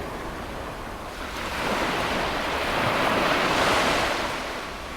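Sea waves breaking on the shore: the surf swells about a second and a half in and dies away near the end, with wind rumbling on the microphone.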